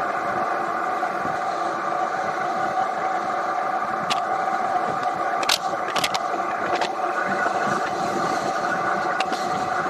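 2018 Triumph Tiger 800 XRt's three-cylinder engine running at a steady cruise, with no change in pitch. A few sharp clicks come in the middle.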